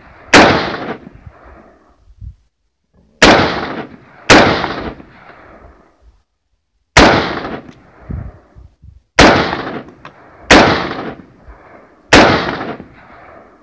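Springfield Saint AR-15 rifle firing seven single semi-automatic shots at an unhurried, uneven pace, one to three seconds apart, each crack trailing off in a short echo.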